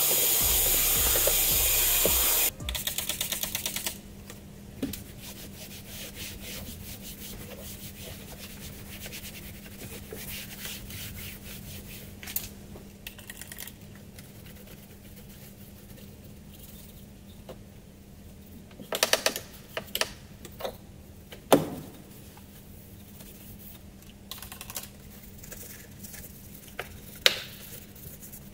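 A vacuum cleaner sucking at the car's door panel runs loudly, then cuts off suddenly about two and a half seconds in. After that a soft detailing brush scrubs the door's plastic and leather trim, its bristles making fast, fine ticking and rubbing sounds, with a faint steady hum underneath and a few sharp clicks.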